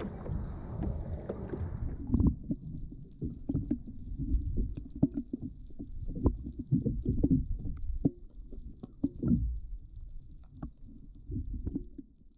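Rushing wind on the microphone for about two seconds, then irregular low knocks and sloshing from water and gear against a fishing kayak.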